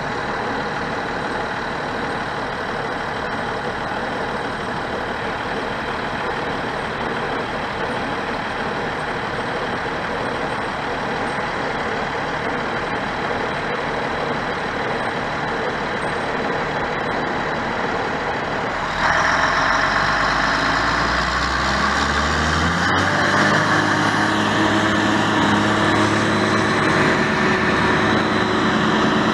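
Heavy diesel engines of tree-removal equipment running steadily. About 19 seconds in the sound jumps louder, and an engine revs up over a few seconds to a higher, steady pitch.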